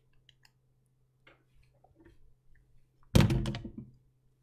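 A few faint clicks and taps, then a single dull thump about three seconds in that dies away quickly.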